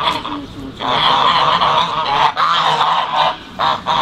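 Loud, continuous honking calls from several birds calling over one another, in short overlapping bursts, with brief lulls about half a second in and again near the end.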